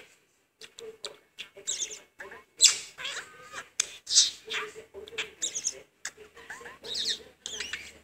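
Pet budgerigar chattering and warbling: a fast run of squeaky chirps and gliding notes with short pauses, starting about half a second in.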